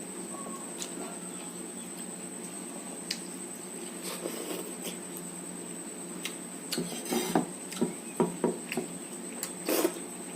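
Eating by hand from a plate of rice and egg curry: fingers scraping and mixing food against the plate with soft clicks. A run of louder clicks and knocks comes in the last few seconds.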